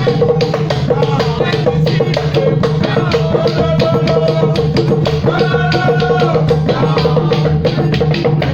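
Afrobeats dance music playing with a steady drum-kit beat and melodic lines over it.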